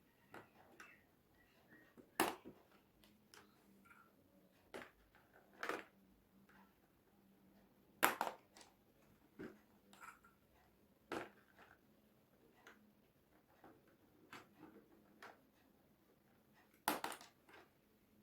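Balls thrown at a drawn-on board, making scattered single knocks every few seconds, the loudest about two and eight seconds in and another near the end.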